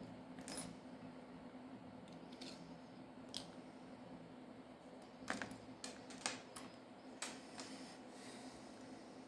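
Scattered small clicks and taps of repair tools and small phone parts being handled during a smartphone disassembly, with a faint steady hum underneath; the taps come in a quick cluster a little past the middle.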